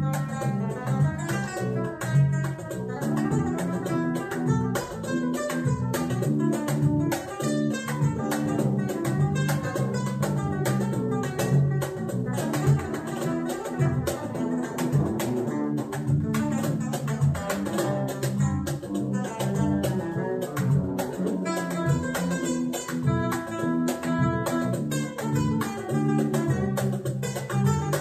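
Background music: fast plucked acoustic guitar in a jazz-flamenco style.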